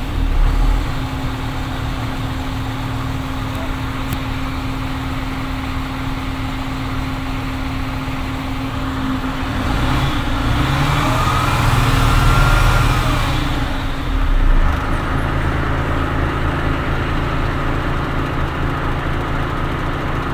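MAN truck diesel engine running in neutral at raised revs, about 1,100–1,200 rpm. The revs rise and fall once near the middle, then drop to a steady idle near 500 rpm for the last several seconds.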